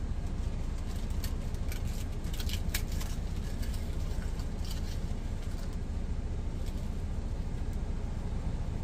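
Steady low engine rumble inside a truck cab, with a plastic bag crinkling and crisp air-fried tortilla crackling as it is crushed into breadcrumbs, mostly in the first half.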